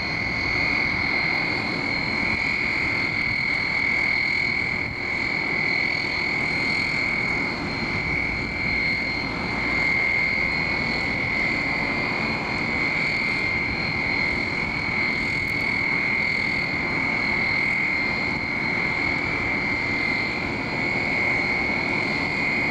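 Aircraft engine running steadily: a constant high whine over a broad rumble.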